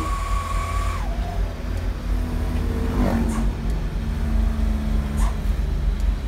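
Mitsubishi Canter truck's diesel engine and road rumble heard from inside the cab while driving, a steady low drone. A held high tone stops about a second in.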